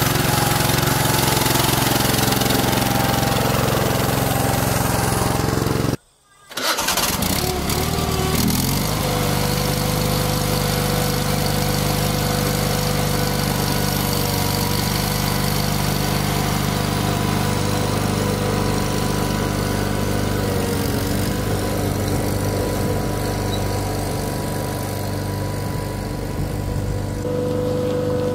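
Small tractor engines running steadily. First a compact loader tractor's engine runs as it dumps a bucket of dirt; then, after a brief dropout about six seconds in, a garden tractor's engine runs steadily as it pulls a dump cart loaded with about 1500 lbs of dirt.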